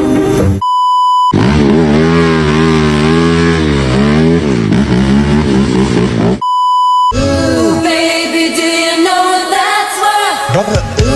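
Two censor bleeps, each a steady high tone lasting under a second, one about half a second in and one about six and a half seconds in. The bleeps cut into music with a wavering pitched drone and swooping tones.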